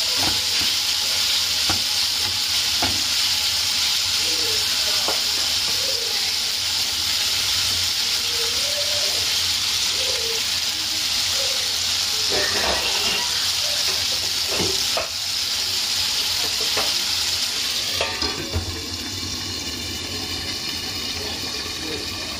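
Chicken breast pieces sizzling in oil in a frying pan, with a spatula scraping and knocking against the pan as they are stir-fried. Near the end the sizzle turns quieter and more muffled as the pan is covered with a metal lid.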